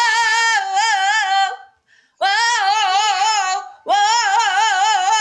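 A high voice singing unaccompanied: three long held notes with a wide vibrato. The first breaks off about a second and a half in, the second starts about half a second later, and the third follows straight on.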